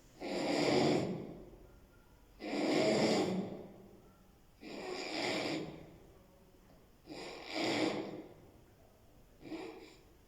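A person snoring: five even snores a little over two seconds apart, each about a second long, the last one shorter and fainter.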